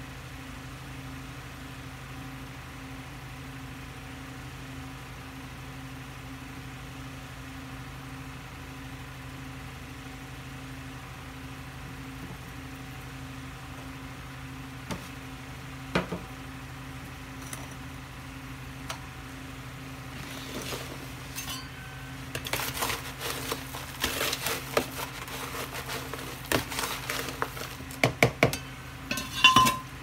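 A steady low hum throughout, with a sharp click about halfway. In the last third, repeated clattering and knocking as a terracotta pot and a plastic tub of potting soil are moved about on a countertop.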